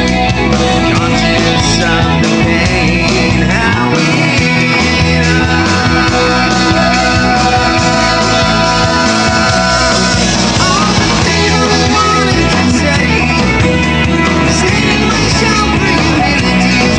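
Rock music with electric guitars playing.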